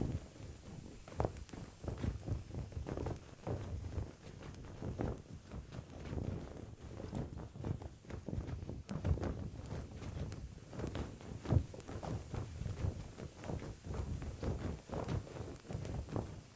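Foley walking steps: irregular dull thuds, several a second, layered over a low rumble.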